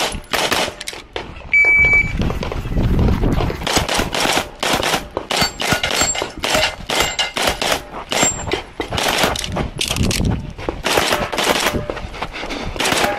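Rapid strings of 9mm pistol shots from a Beretta 92X Performance, fired quickly in closely spaced groups with short pauses between them. A brief ringing tone sounds about two seconds in, the loudest moment.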